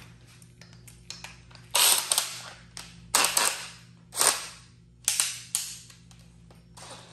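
Cordless drill being readied with a hole saw, the chuck worked by hand: about five short, sharp bursts of noise, each fading within half a second.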